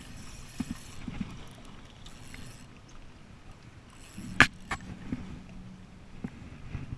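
Lake water lapping against the rocks of a breakwall, a steady low wash, with two sharp clicks about four and a half seconds in.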